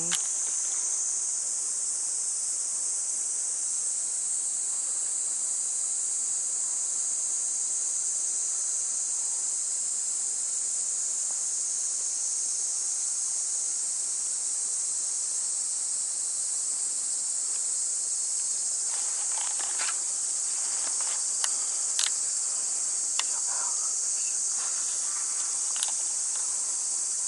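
Steady high-pitched chorus of insects droning without a break. A few faint clicks and knocks come in the second half, the sharpest about two-thirds of the way through.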